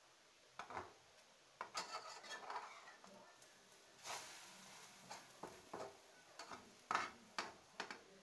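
Metal spatula scraping and knocking against an aluminium frying pan as a pancake is loosened and flipped, in a run of irregular short scrapes and taps.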